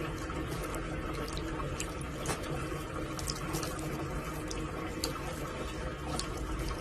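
Steady hiss of running water, with scattered small ticks.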